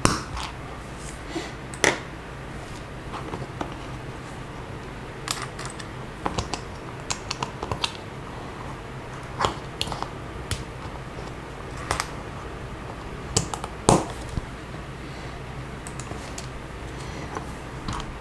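Plastic LEGO bricks clicking and snapping as they are pressed together and picked through: sharp clicks at irregular intervals, some louder than others, over a low steady hum.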